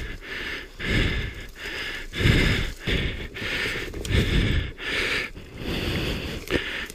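A person breathing hard from exertion: quick, heavy breaths in and out, about two a second.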